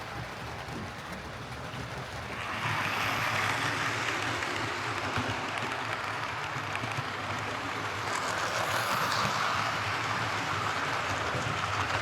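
Hornby King Class OO gauge model steam locomotive running along its track, a steady whirr of motor, gears and wheels on rail that grows louder about two and a half seconds in. It is running after a clean and fresh lubrication meant to cure a grinding noise when going forwards.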